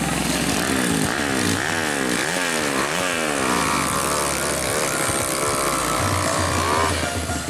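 Motorcycle engine revving hard on a steep dirt hill climb, its pitch rising and falling several times in quick succession, then holding a high steady note until it drops away shortly before the end.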